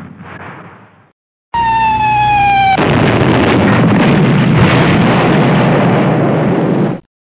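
Falling bomb whistle: a steady tone sliding slowly down in pitch for over a second, cut off by a loud explosion that rumbles on for about four seconds and then stops abruptly. Before it, the last of a previous blast fades out.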